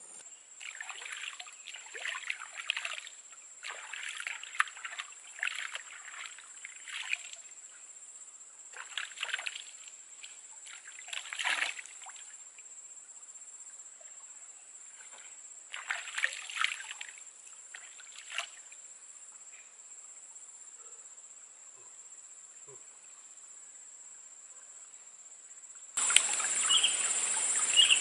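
Stream water splashing in irregular bouts as hands scoop it over the head and face, several splashes over the first eighteen seconds, then quiet. Near the end the sound switches abruptly to a louder outdoor background with chirping insects.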